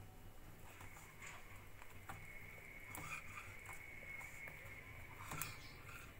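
Faint wet patter and small clicks of a seeded green chilli being dipped and turned by hand in thick gram-flour batter, with the sharpest click about five seconds in. A faint thin high steady tone sounds from about two seconds in until shortly before the end.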